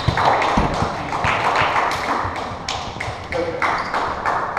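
A volleyball bouncing on a hardwood gym floor among scattered sharp taps and knocks, over a steady haze of background noise in an echoing gym.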